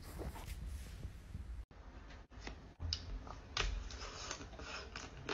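Close-up eating sounds: soft, irregular mouth clicks and smacks as a mousse-like chocolate dessert is bitten and chewed. They start after a quiet stretch about a third of the way in.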